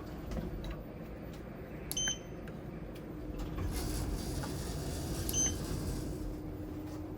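Lift car running with a faint steady hum, with two short electronic beeps about three seconds apart.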